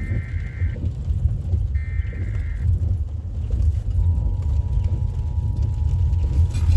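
Emergency Alert System tones: the last bursts of the warbling digital SAME header, each under a second and about two seconds apart, then about four seconds in the steady two-tone attention signal begins, marking the start of a new alert. A loud, constant low rumble runs underneath.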